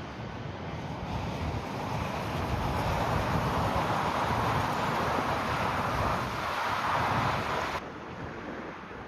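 Jet airliner's engine roar swelling as the aircraft passes, then cut off suddenly near the end, with wind buffeting the microphone.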